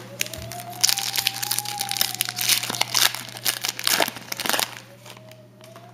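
Foil wrapper of a 2007 Upper Deck Trilogy football card pack crinkling and tearing as it is opened by hand, a dense run of crackles that dies down near the end.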